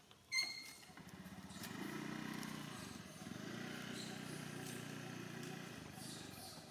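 A motor vehicle's engine running, growing louder about a second in, holding steady for a few seconds and fading near the end. A sharp click comes just before it.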